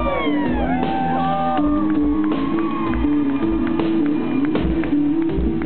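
Amplified live band music: an electric bass guitar line over a steady kick drum, with high whoops from the audience in the first second or so.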